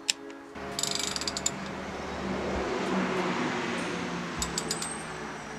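One sharp click at the start, then the crankshaft of a rebuilt Nissan KA24DE four-cylinder is turned by hand with a ratchet wrench: a steady scraping of the new pistons' rings sliding in the oiled bores, with scattered ratchet clicks. The pistons move freely, with little drag.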